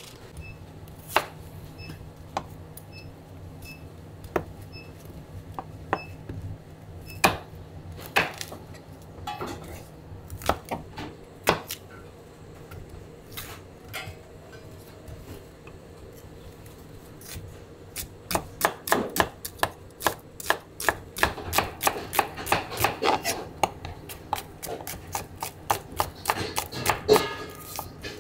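Chef's knife cutting onions on a cutting board. A few separate knocks come first, then from about two-thirds of the way through, rapid slicing strokes at several a second.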